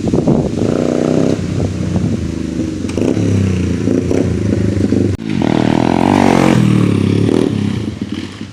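Yamaha TT-R90 dirt bike's small four-stroke single-cylinder engine revving up and down as it is ridden. Its pitch rises and falls, and it dips sharply for a moment about five seconds in before revving up again.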